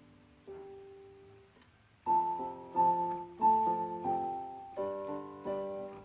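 Background piano music: a lone soft note, then from about two seconds in a run of chords struck every half second or so, each fading away.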